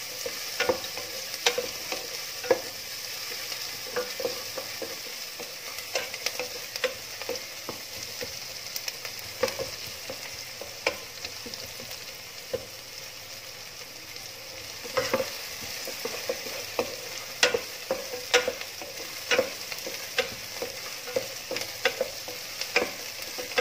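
Chopped onions sizzling in hot oil in a pan as they fry toward golden, with a wooden spatula stirring and knocking against the pan about once a second, the knocks sharper in the second half.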